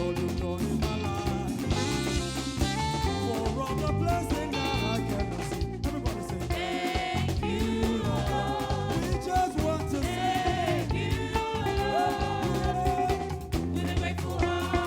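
Live band playing an upbeat African gospel praise song, with a drum kit keeping a steady beat, a strong bass line and singing over it.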